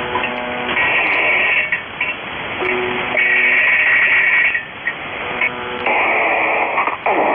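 Music with guitar played into a two-way radio channel, heard through the radio's narrow, tinny bandwidth. About six seconds in it gives way to a rougher, noisier sound.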